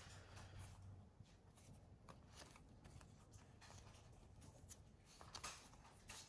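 Faint sliding and flicking of cardboard baseball trading cards as they are thumbed from one stack to another by hand, with a few soft ticks spread through.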